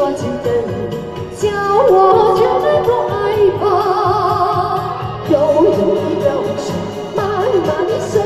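A woman singing a Mandarin pop ballad into a microphone over a karaoke backing track, her held notes wavering with vibrato.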